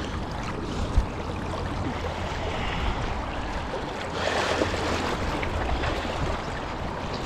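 Steady wash of flowing river current, with a single sharp knock about a second in and a brief louder swell of noise around four seconds in.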